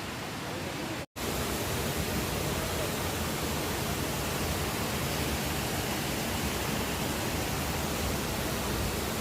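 Steady rush of falling water from a waterfall, an even wash of noise. It cuts out for an instant about a second in, then continues slightly louder.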